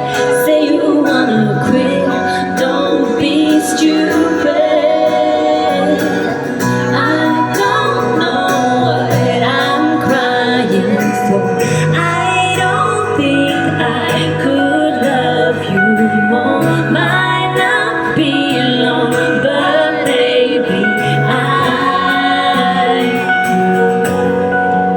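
Female vocals singing a pop song over a steady instrumental backing with a bass line.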